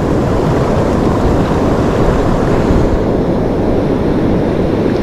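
Steady rush of breaking surf washing up the beach, with wind buffeting the microphone.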